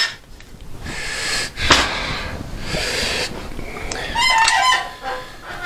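Thin tin-plate sheet being bent by hand around a cylindrical form, rattling and clanking, with a short wavering tone about four seconds in.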